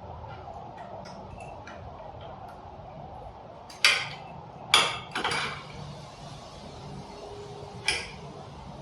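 Metal hand tools clinking and knocking against e-bike parts while a part is tightened during assembly: light ticks and taps, with four sharper metallic knocks, two about four to five seconds in and one near the end.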